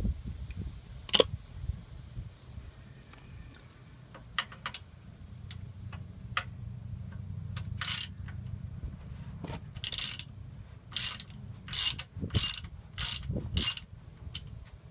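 Hand socket ratchet clicking as bolts on the rear differential cover are worked loose: a few single clicks, then about eight quick back-and-forth ratcheting strokes in the second half.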